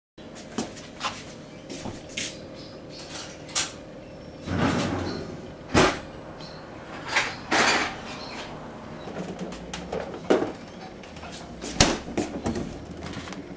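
Irregular knocks and clicks of containers and bottles being handled on a kitchen counter, with a few louder sharp knocks and a longer scraping rustle about four to five seconds in.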